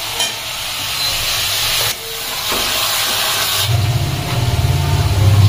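Food sizzling in a pan, a steady hiss. About two-thirds of the way in, a loud low pulsing hum joins it.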